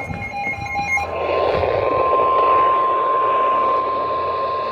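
Weather alert radio sounding the single steady 1050 Hz warning alarm tone, starting about a second in over radio static. Faint short beeping tones come before it.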